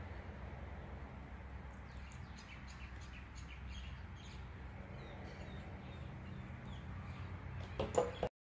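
Faint bird chirps over a steady low hum, with a short sharp knock near the end, after which the sound cuts off abruptly.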